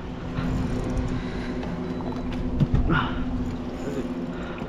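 Boat outboard motor idling steadily, with a short knock about two and a half seconds in.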